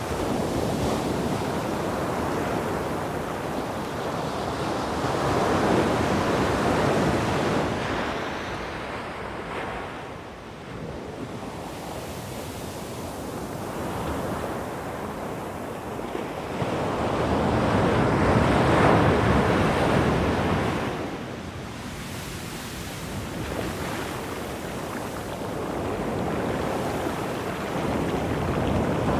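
Sea surf washing onto a shore, swelling and ebbing in slow, irregular surges, with a strong surge building near the end.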